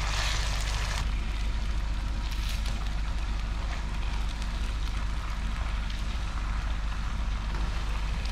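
Pieces of fish deep-frying in hot oil in a wok, a steady sizzle that is brighter in the first second while they are turned over with a wire skimmer, over a low steady hum.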